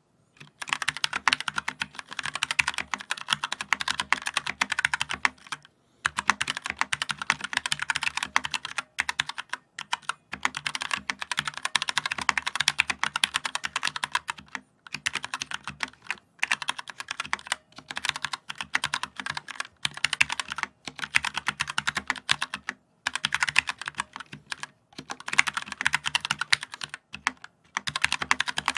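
Fast typing on a mechanical keyboard: dense rapid key clicks in runs of a few seconds, broken by brief pauses.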